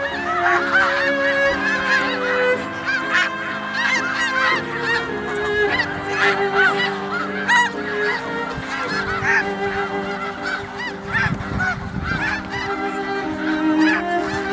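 A large flock of snow geese honking, many birds calling at once in a dense, continuous chorus of short overlapping calls.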